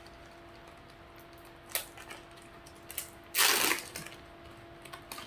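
Plastic cookie wrapper being handled: a few small crinkles and clicks, then one short, loud rip as it is torn open a little past halfway.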